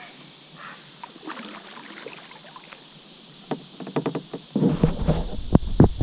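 Clicks and knocks of gear being handled aboard a plastic fishing kayak, starting about three and a half seconds in, then heavy rumbling handling noise and bumps on the microphone from about four and a half seconds in.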